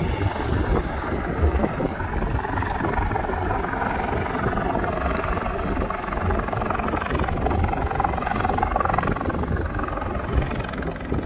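Helicopter flying overhead, a steady rotor and engine noise, with wind rumbling on the microphone.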